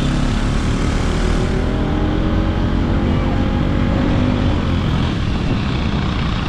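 Vehicle engine running in moving traffic over a heavy, steady low rumble of road and wind noise, its tone rising a little in the middle.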